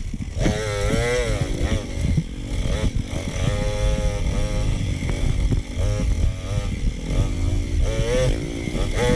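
Dirt bike engine revving up and down again and again on a single-track trail, played back at double speed, over a rough low rumble.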